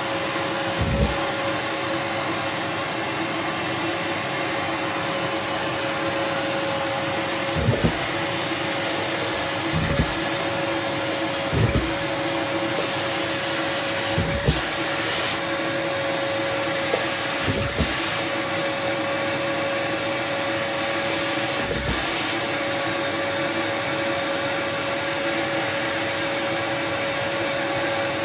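Kärcher WD 3 wet-and-dry vacuum running steadily with a constant whine, broken by about seven short knocks and thuds at irregular moments.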